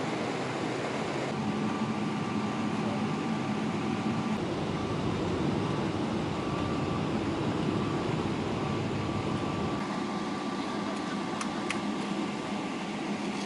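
Steady mechanical rumble and hiss with a faint steady hum, which changes slightly about a second in.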